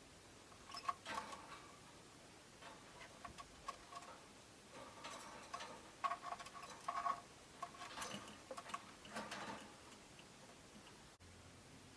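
Faint, irregular clicking and tapping from rosy-faced lovebirds moving about and nibbling in their cage, coming in clusters about a second in, again from about five to seven seconds, and from eight to nine and a half seconds.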